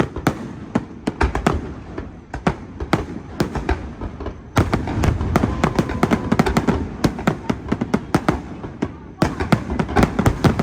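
Aerial fireworks show: a rapid, continuous barrage of shell bursts and crackling reports. It gets louder and denser about halfway through, eases for a moment near the end, then resumes.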